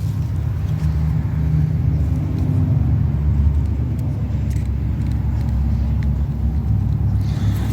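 A steady low rumble with a few faint, light clicks over it.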